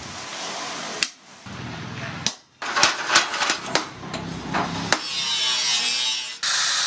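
Hammer blows on metal at a blacksmith's anvil, several sharp strikes in short runs broken by abrupt changes. About five seconds in, a steady rushing hiss takes over and gets louder near the end.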